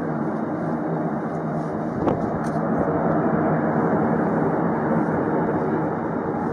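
Rockwell B-1B Lancer's four turbofan engines running, heard from afar as a steady rumble. A single short knock about two seconds in.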